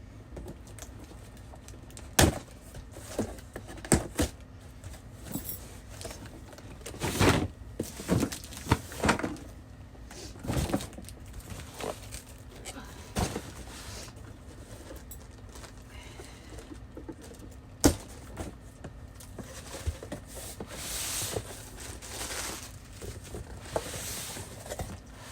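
A box of perfume being opened and unpacked by hand: scattered knocks and clicks, with stretches of rustling packaging.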